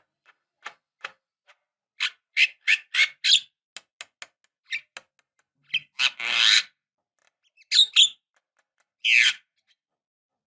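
Javan myna calling: scattered clicks and short chattering notes, a quick run of five loud notes about two seconds in, a longer harsh call around six seconds, and a few more sharp notes near the end.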